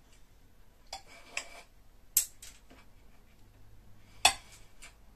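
Kitchen clatter during meal preparation: a handful of short, sharp clinks and knocks spread out, the loudest about four seconds in.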